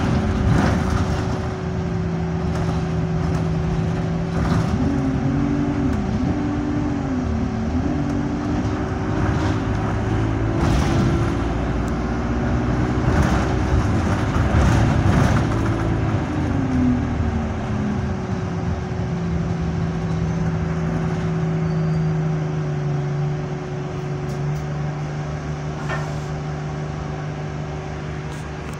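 Interior sound of an Alexander Dennis Enviro200 single-decker bus's Euro 5 diesel engine and Allison automatic gearbox under way. The engine note rises and falls several times through the middle, then settles to a steady drone near the end as the bus slows toward a stop, over a thin constant whine. The gearbox is in limp mode with no kickdown.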